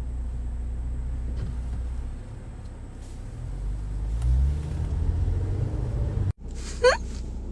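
Car engine and road rumble while driving, the engine note rising about four seconds in as the car accelerates; the sound cuts off abruptly near the end.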